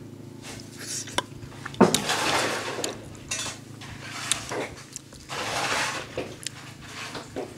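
Food being handled on a plate by hand: one sharp clink about two seconds in, the loudest sound, then two spells of rustling and scraping, with small clicks between.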